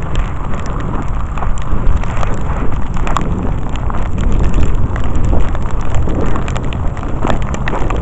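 Strong wind buffeting the microphone in a snowstorm, a steady low rumble with irregular crunching and crackling from footsteps in snow.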